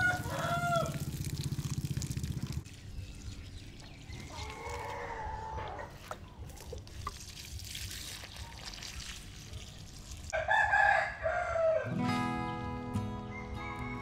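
Rooster crowing three times: one crow ending about a second in, one around five seconds, and the loudest about ten and a half seconds in. A low hum runs under the first couple of seconds, and acoustic guitar music comes in near the end.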